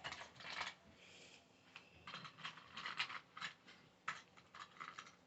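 Irregular light clicks and rattles of small hard objects being handled, coming in quick clusters and busier from about two seconds in.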